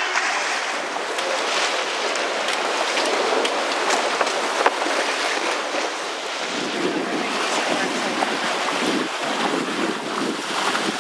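Wind buffeting the microphone over the steady rush and splash of water along the hull of a sailing yacht under way, with small crackles and ticks scattered through it and gentle swells in level.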